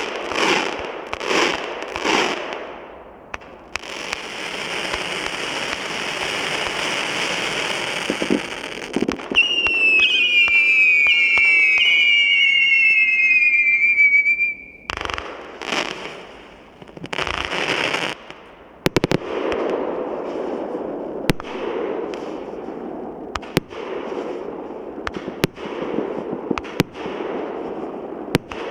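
Multi-calibre 216-shot fireworks cake firing. A few launches come first, then a steady hissing stretch, then several shrill whistles sliding down in pitch. After that come repeated sharp bangs over a crackling hiss.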